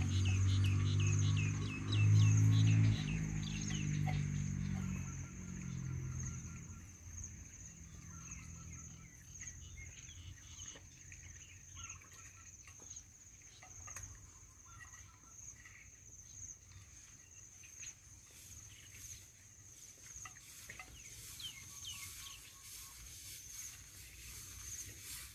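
Puppies eating dry kibble from a plate, with scattered small chewing clicks, over a steady high insect drone. A loud low steady-pitched sound dominates the first few seconds and fades out by about six seconds in.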